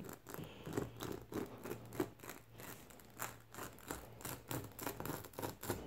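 Spiral rasp tool of a tyre plug repair kit, coated in rubber cement, worked in and out of a puncture in a car tyre's tread. Repeated short scratchy rasps of metal on rubber, about two or three a second and uneven, as the hole is reamed and cemented before the plug goes in.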